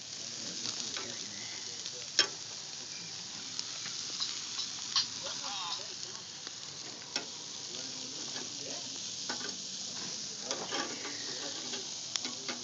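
Frozen hamburger patties sizzling steadily on a hot charcoal grill grate, with a few sharp pops or clicks, the loudest about two seconds in.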